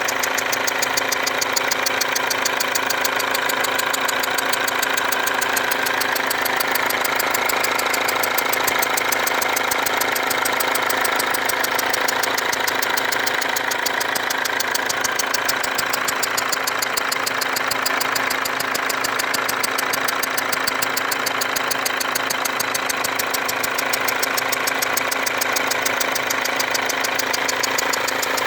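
Mercedes W204 C-Class diesel engine idling, with a loud, fast ticking and a whistle from around a leaking injector. The noise is the sign of combustion gas escaping past the injector's seal.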